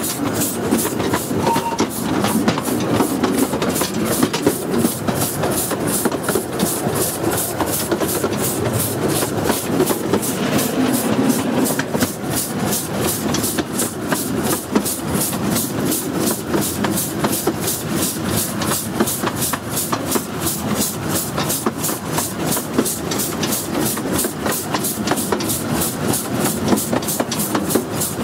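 A 15-inch gauge miniature steam locomotive hauling its train along the track, heard close up from the coach behind it: a steady, even rhythm of beats over the continuous running noise of wheels on rail.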